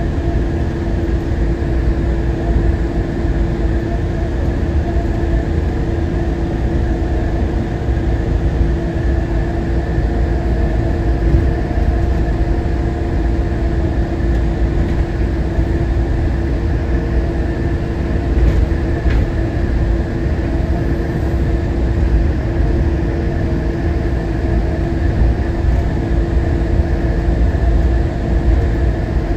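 Newark Airport AirTrain monorail car running at steady speed, heard from inside the car: a constant low rumble with a steady hum that holds its pitch, and a faint click about two thirds of the way through.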